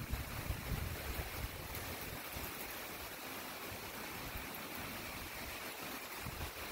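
Steady hiss of storm rain and wind over choppy lake water, with gusts buffeting the microphone in the first second and a half.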